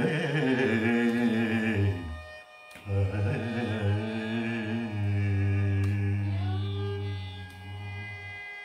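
A man's voice singing the closing phrases of a Carnatic devotional kriti in two long, drawn-out phrases, with violin accompaniment; the singing trails off near the end.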